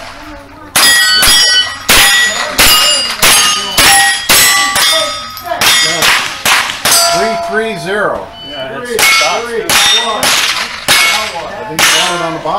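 Rimfire rifle fired in quick succession, about two shots a second with a short break midway, with the steel target plates ringing as they are hit.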